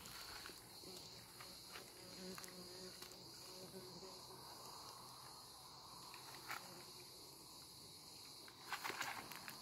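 Faint, steady chirring of insects in the background, with a few soft clicks and a brief rustle near the end.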